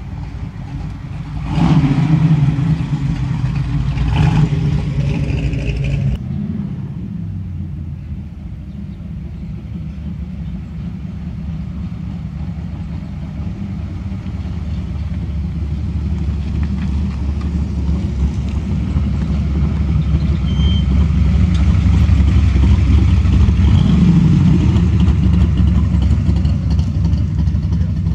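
Classic cars' engines driving slowly past: a first-generation Chevrolet Camaro revs loudly for a few seconds about two seconds in as it pulls by. Then a deep, low engine rumble builds as the next cars approach, loudest near the end.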